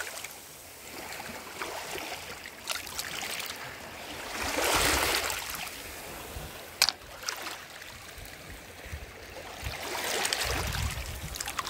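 Small sea waves washing over a pebble beach, swelling once about four seconds in, with a single sharp click a little past halfway.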